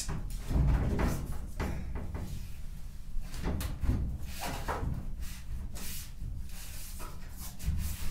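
Bare steel door of a Mk1 Mini being swung and pushed against its frame a few times during test-fitting: a string of knocks and scrapes of metal on metal, the loudest about a second in and about four seconds in.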